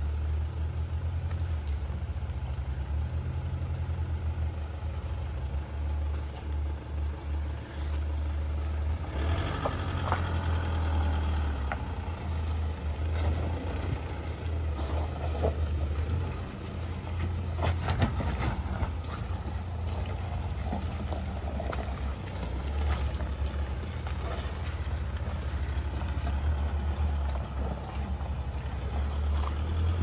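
A 4x4's engine running at low revs with a steady low drone as it crawls over a rocky, rutted track, with bumps, knocks and rattles from the wheels and body, more frequent from about nine seconds in.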